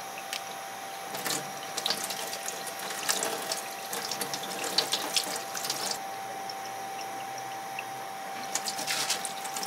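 Tap water running into a stainless steel sink while small horse mackerel are cleaned by hand, with clusters of small clicks from the handling between about one and six seconds in and again near the end. A faint steady tone sits underneath.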